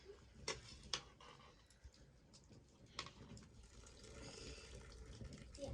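Quiet background with a few sharp, faint clicks or taps: two close together in the first second and one more about three seconds in.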